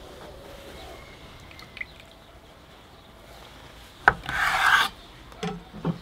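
Chef's knife slicing through an orange on a wooden cutting board: a sharp click about four seconds in, then a brief rasping cut through the peel and flesh, followed by a couple of soft knocks near the end.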